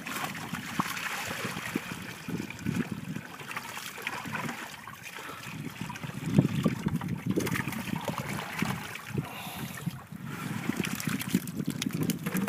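Water pouring and splashing out of a tipped plastic bucket onto wet sand, swelling a few times as the bucket is emptied of its catch.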